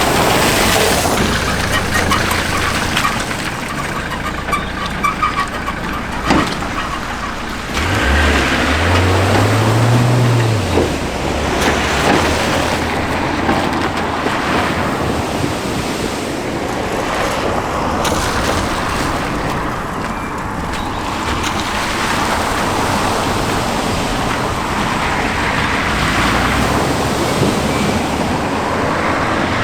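Vehicles driving through a flooded river ford: water rushing and splashing against the bodywork, with engine noise underneath. About eight seconds in, an engine revs up and then back down.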